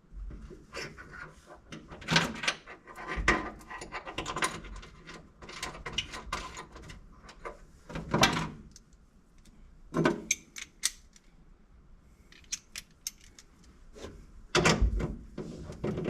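Irregular metallic clinking, rattling and knocking of seatbelt buckles and mounting hardware being handled during installation, with a few louder clunks among the jangles.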